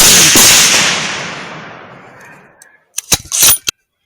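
A rifle shot, one sharp crack followed by a long rolling echo that fades away over about two and a half seconds. About three seconds in come a few short, sharp clicks.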